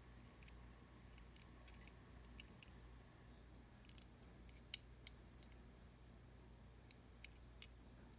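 Near silence with faint, scattered clicks and ticks of fingers handling a small die-cast model van, the sharpest just under five seconds in, over a low steady room hum.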